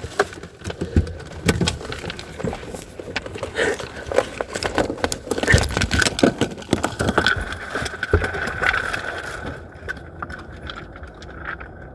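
Scuffling and handling noise: a jumble of knocks, rubs and clicks, with a faint steady high tone for a few seconds in the middle.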